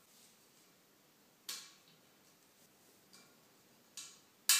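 Sharp clinks as the steel poles and plastic sleeve clips of a wire shelving unit are handled during assembly, each with a brief metallic ring. There are four, unevenly spaced, the loudest near the end.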